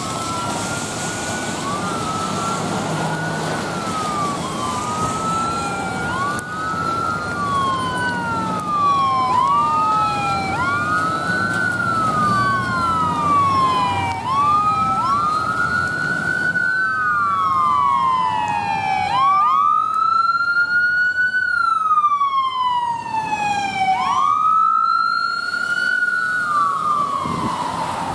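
Ambulance's electronic siren on wail, each sweep rising quickly and sliding slowly back down, over and over. In the first half two wails overlap a little out of step; from about two-thirds of the way in the sweeps grow louder and slower.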